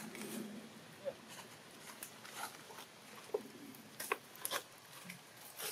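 Long-tailed macaques moving about on dry leaf litter: faint scattered rustles and clicks, busiest about four seconds in, with a couple of brief faint squeaks.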